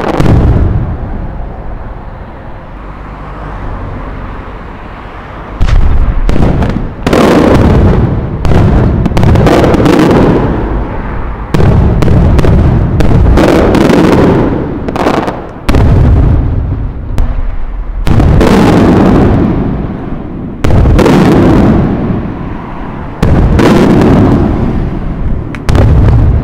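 Aerial firework shells bursting overhead. After a quieter stretch of fading rumble in the first five seconds or so, about eight loud booms come one every two to four seconds, each rumbling on for a second or two.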